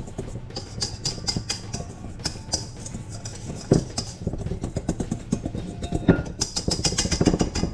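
A utensil scraping and tapping against a mixing bowl in quick runs of clicks, as the last of the wet batter mix is scraped into the dry ingredients.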